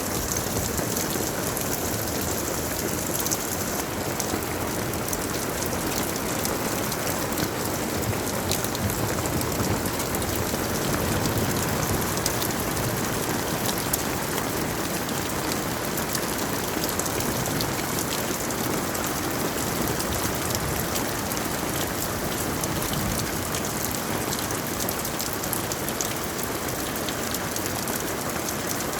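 Steady rain falling, with a dense scatter of fine drop clicks.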